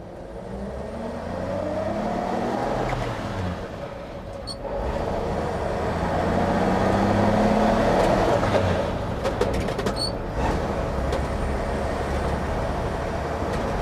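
1949 GMC pickup's 228 cubic inch inline-six heard from inside the cab, pulling away with its note rising, breaking off twice, about four and nine seconds in, for gear changes, then running on steadily. Some clicking rattles from the old truck near the middle.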